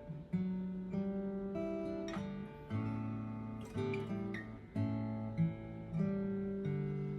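Acoustic guitar fitted with new bone parts being played: chords picked and strummed, a new one struck roughly every second and left to ring.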